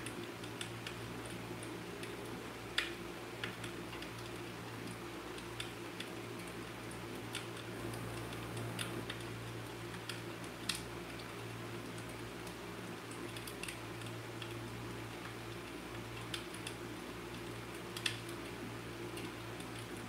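Scattered light ticks and taps, a few sharper ones about 3, 11 and 18 seconds in, over a steady low hum.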